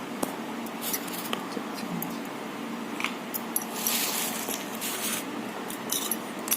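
Light kitchen handling sounds: a few soft clicks of a spoon against a bowl and a brief scraping rustle about four seconds in, while gram flour goes into the batter.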